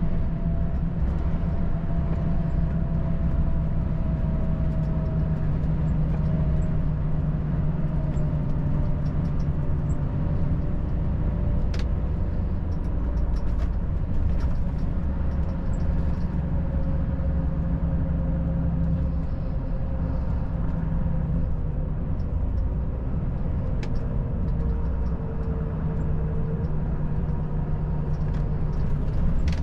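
Volvo FH 540 truck's 13-litre inline-six diesel and tyres running steadily at highway speed, a low drone with a thin whine that slowly falls in pitch.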